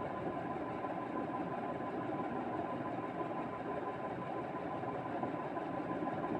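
A steady, unbroken mechanical hum with a thin high tone held through it; nothing starts or stops.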